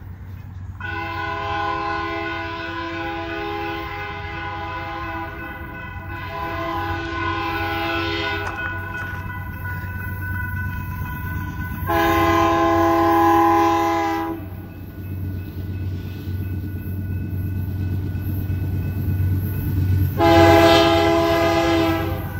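Air horn of a GE AC4400CW diesel locomotive leading a freight train, sounding the grade-crossing signal as it approaches: two long blasts, one short and a final long, over a steady low rumble from the locomotives' diesel engines that grows toward the end.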